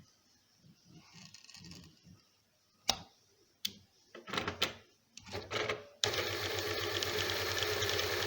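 A few sharp clicks and handling knocks, then about six seconds in a Janome zigzag sewing machine starts and runs steadily. Freshly lubricated, it runs with its normal light sound, the heavy noise it made before now cured.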